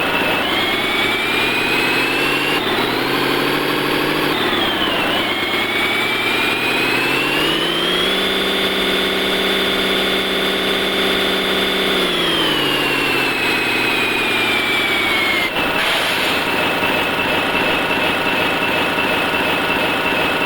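RC sound module playing a simulated Mitsubishi Fuso Fighter 6M60 inline-six diesel truck engine. It revs up, holds high revs for about four seconds, drops back to idle, and idles steadily near the end, with a high whine rising and falling with the revs.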